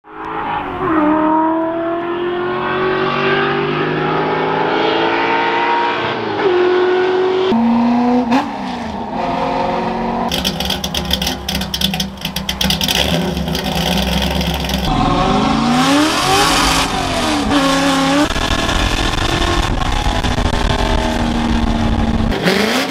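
Ford F100 pickup's engine and exhaust revving and pulling hard, its pitch climbing and dropping several times as it accelerates and eases off. About ten seconds in it turns harsher and noisier for a few seconds.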